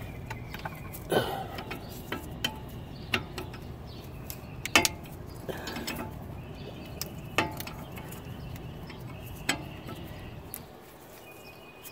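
Scattered sharp metallic clicks and clinks of a 17 mm wrench working a brake caliper bolt, at an irregular pace, over a steady low background rumble that drops away near the end.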